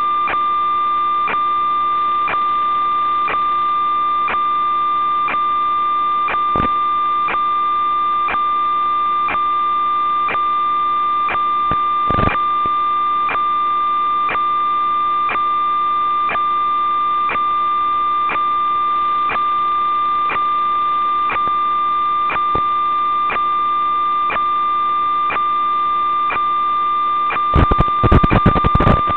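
Steady electronic tone with faint regular ticks, from the audio channel of an analog 5.8 GHz FPV video link recorded by the goggles. A burst of static crackle comes near the end, as the video signal breaks up.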